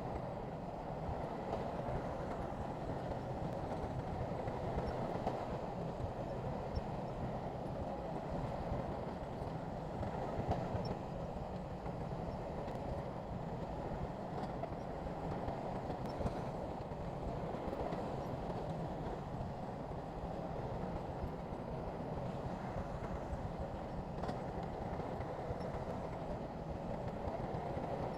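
Heavy diesel earthmoving machinery running steadily, with the engine noise holding at an even level throughout.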